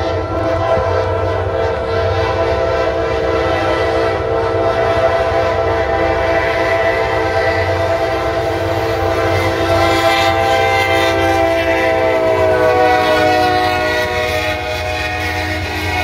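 Norfolk Southern freight locomotive's multi-chime air horn sounding one long unbroken blast as the train approaches and passes, over the low rumble of the train. The chord sags slightly in pitch about three-quarters of the way through as the locomotive goes by.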